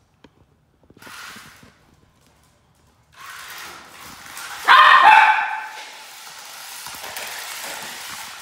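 A miniature schnauzer gives a high-pitched, excited bark about five seconds in, over a steady whirring hiss from a remote-control stunt car's motors.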